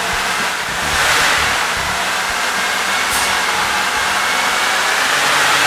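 Buick 3.8L V6 engine running steadily, growing louder about a second in. It is running rough, with its motorized EGR valve stuck wide open.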